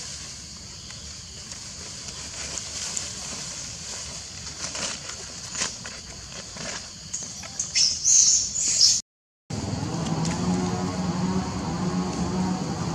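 Scattered rustles and clicks over dry leaf litter with a steady high hiss behind them, and a louder flurry of rustling near the end of the first part. After a brief cut, a steady low droning hum with several pitches takes over.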